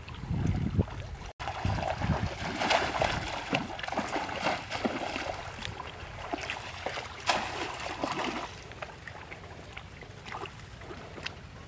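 Shallow stream water splashing and sloshing as bamboo cone fish traps are pressed into it and hands grope about inside them. The sound drops out for an instant about a second in, is busiest from about two seconds in until about eight, then settles to a few small splashes.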